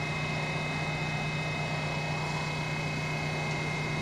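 Steady drone of a subway station as an R68 train approaches from far down the tunnel, with a constant low hum and a faint steady high whine.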